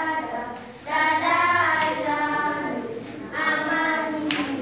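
A group of schoolchildren singing together in two phrases, the first starting about a second in and the second about three and a half seconds in. Two sharp knocks are heard, one near the middle and one near the end.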